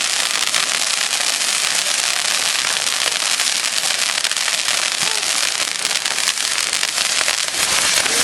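Papier-mâché Judas figure loaded with firecrackers going off: a dense, unbroken crackle of many small rapid bangs over a steady hiss.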